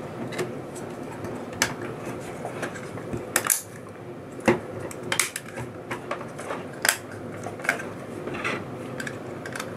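Scattered sharp clicks and light knocks of a colorimeter's hard PC-ABS plastic casing being handled and its side panels snapped back into place, the loudest clicks coming irregularly about a second apart.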